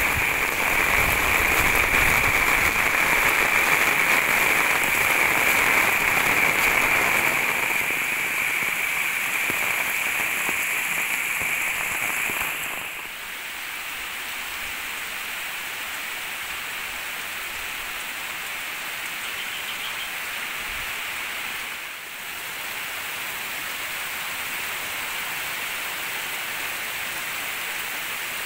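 Heavy tropical rain falling in a steady downpour: an even hiss that is louder for the first dozen seconds, then drops to a lower, still steady level.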